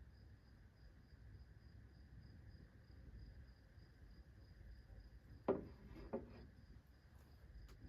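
Two short knocks about half a second apart, as of objects being handled, over a faint, steady, high pulsing tone.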